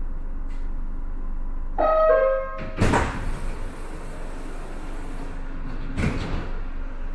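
Metro car's sliding passenger doors opening at a station: a two-note chime about two seconds in, the second note lower, then a loud rush and hiss as the doors slide open, and a knock about six seconds in.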